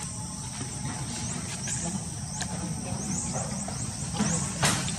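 Outdoor ambience: a steady high insect drone with repeated short rising chirps, over a constant low rumble. A short noisy burst about four and a half seconds in is the loudest moment.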